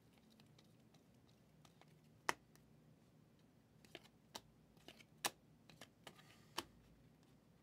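Stiff chromium trading cards being flipped through by hand, giving a scatter of sharp clicks and snaps against near silence, starting about two seconds in.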